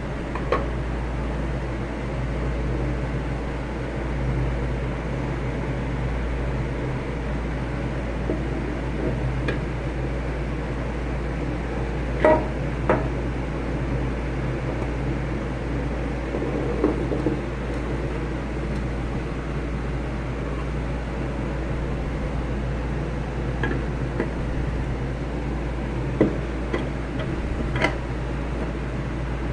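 A 1-litre acrylic bottle being handled: a handful of light clicks and knocks, two close together about halfway, over a steady low hum.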